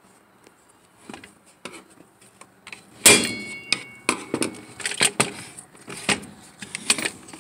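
Hard plastic chainsaw housing and handle parts knocking and clicking as they are worked apart by hand. About three seconds in comes a sharp clack with a brief metallic ring, followed by irregular knocks and rattles.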